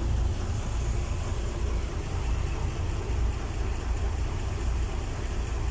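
An engine idling steadily, a continuous low rumble.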